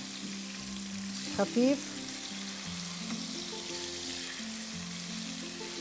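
Flour-dusted fish pieces sizzling steadily as they shallow-fry in hot corn oil in a pan, over soft background music of held notes.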